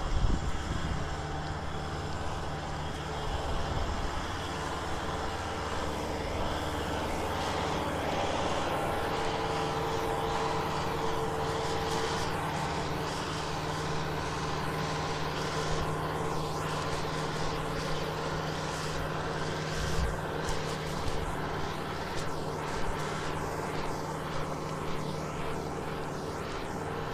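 Kubota M6040SU tractor's four-cylinder diesel engine running steadily under load as it pulls a loaded trailer through mud, with a few knocks in the second half.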